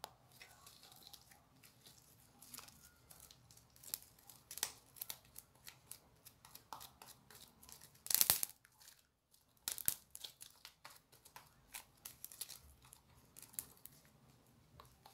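Slime being stretched, pulled apart and squished by hand, making sticky clicks and crackles as it tears and sticks, with one louder burst about eight seconds in.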